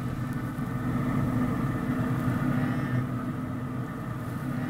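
Steady electric hum of a Traeger pellet grill's convection blower fan running.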